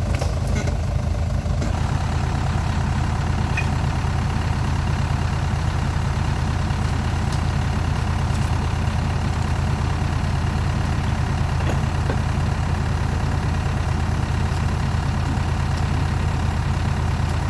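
Off-road 4x4 vehicle's engine running steadily at low revs, close by; its note evens out about two seconds in.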